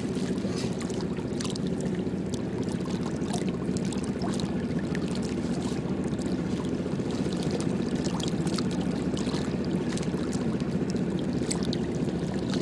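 A steady low drone with water lapping at the river's edge, and scattered faint clicks and rustles from a woven plastic sack being handled.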